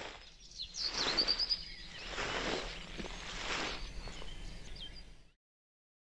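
Wind blowing in swelling gusts, with a short trill of bird chirps about a second in and a faint chirp near four seconds. It cuts off suddenly a little after five seconds.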